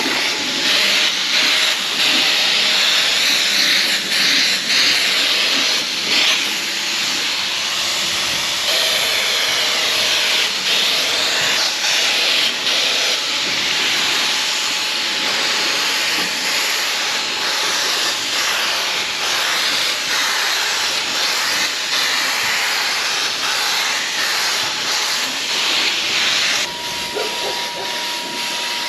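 Wagner Flexio electric paint sprayer spraying paint onto wooden beehive boxes, a loud steady hiss of atomised paint and air. Near the end the hiss drops back and a steady whine is left.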